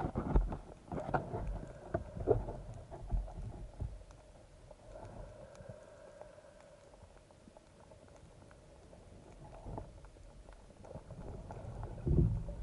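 Underwater sound from a camera mounted on a speargun: irregular low knocks and thumps from the gun and housing as the diver moves, bunched in the first few seconds and again near the end, over a faint steady hum that comes and goes.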